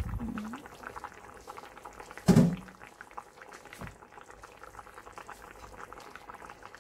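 Beef short ribs bubbling at a simmer in soy-based braising liquid in an uncovered stainless steel pan, a steady run of small crackling pops. A single loud knock about two seconds in, and a softer thud a little later.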